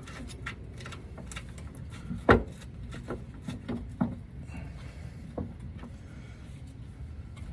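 Scattered light clicks and knocks of metal hardware being handled while bolts are threaded by hand into a truck side step's mounting brackets. One sharper knock comes a little over two seconds in.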